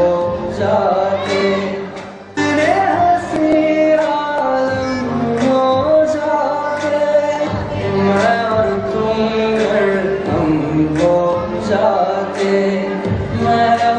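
A song with singing over instrumental accompaniment. It fades down briefly about two seconds in and cuts back in abruptly.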